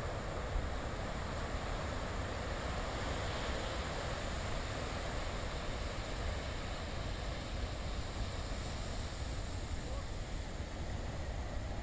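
Steady rush of surf breaking and washing up the beach, with a low rumble of wind buffeting the microphone.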